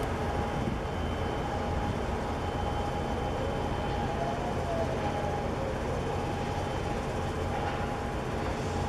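Large container ship's engine droning steadily across the water as the ship heads out of the harbour: a low rumble with a faint steady hum above it, and a faint tone that rises and falls about halfway through.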